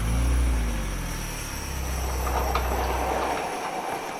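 A vehicle engine's low drone with road and rushing noise; the drone dies away after about three and a half seconds.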